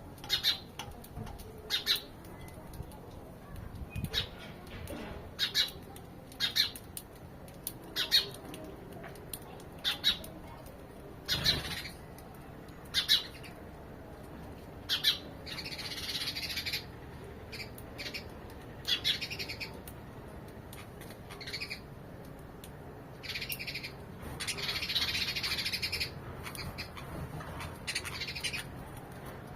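Sparrows chirping: short, sharp chirps about every second or two, with two longer bouts of busier chattering, one in the middle and one near the end.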